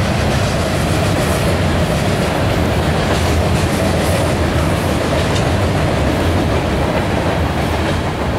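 Freight train's tank cars and covered hopper cars rolling past: a loud, steady rumble of steel wheels on the rails, with wheels clicking over rail joints now and then.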